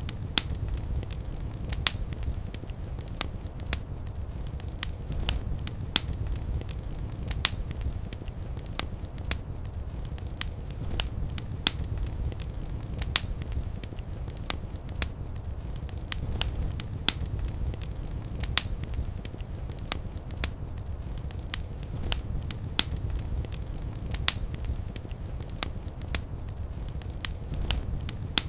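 Wood fire crackling in a fireplace: frequent, irregular sharp pops and snaps over a steady low rumble of the flames.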